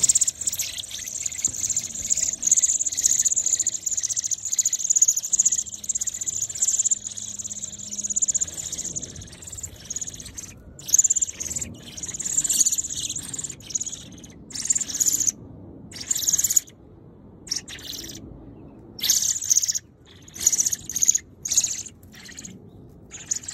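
Thirteen-day-old American robin nestlings begging for food from a parent at the nest: a dense, high-pitched chorus of shrill chirps for about the first ten seconds, then breaking into short bursts with pauses between them.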